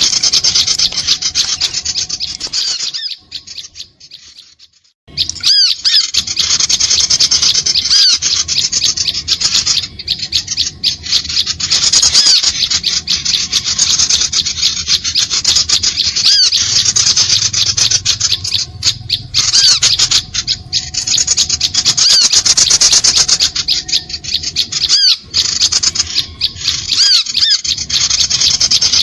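Small-bird lure recording (suara pikat): a dense, fast, high-pitched chattering of small birds' chirps and squeaks, with a short break about three to five seconds in.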